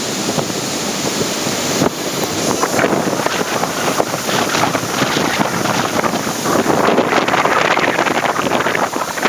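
Strong wind buffeting the microphone over the rush of breaking surf.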